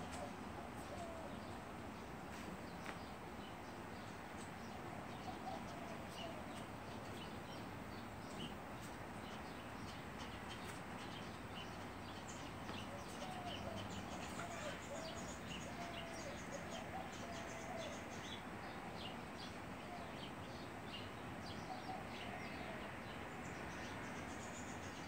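Faint bird calls over a steady hiss: soft, low wavering notes, densest midway, and scattered short high chirps.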